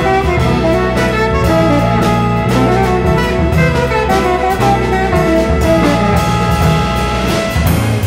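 Live jazz ensemble playing: a tenor saxophone over bass, piano and drums, with brass and strings in the band and cymbal strokes ticking steadily throughout.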